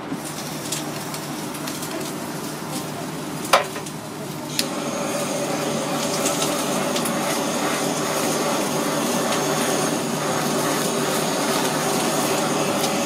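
Handheld kitchen blowtorch flame-searing beef nigiri: two sharp clicks about three and a half and four and a half seconds in, then the torch's steady hiss.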